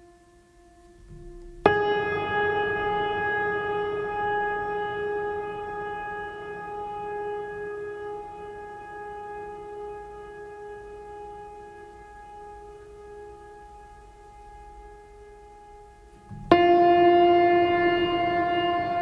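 Background music: a long held instrumental note with a rich stack of overtones, starting sharply about two seconds in and slowly fading, then a new, louder note striking in near the end.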